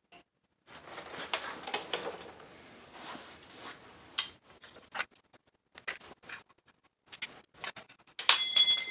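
Scattered small clicks and rustling of things being handled on a workbench. Near the end comes a loud metallic clatter that rings on with several high tones, like a metal part dropped or knocked over.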